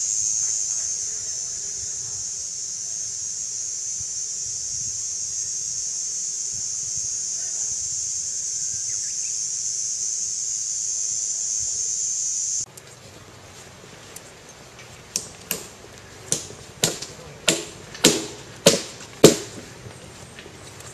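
A steady high-pitched hiss, which stops suddenly about two-thirds of the way in. Then about eight sharp hammer blows on the wooden boardwalk planks, roughly every half second and growing louder, as the boardwalk is repaired.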